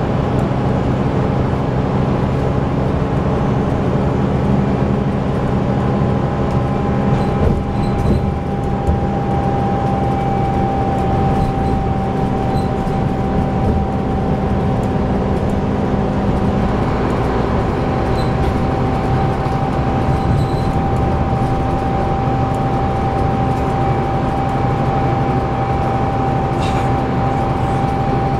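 A Scania double-decker bus's diesel engine and driveline heard from inside the moving bus: a steady, loud drone with a constant high whine over it. The engine note shifts a little over halfway through, and there are a few faint rattles from the body.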